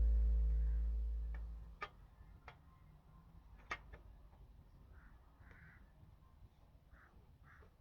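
Guitar background music fading out over the first second and a half, followed by faint, scattered clicks and soft handling noises.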